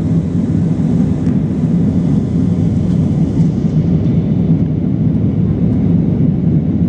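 Steady cabin noise of an Airbus airliner climbing after takeoff: jet engines and rushing air heard from inside the passenger cabin, an even low rumble.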